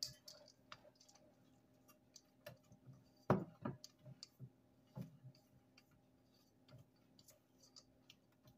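Hand-stirring banana nut bread batter in a stainless steel mixing bowl: a utensil scrapes through the batter and knocks against the metal in scattered clicks and taps. The loudest knock comes about three seconds in.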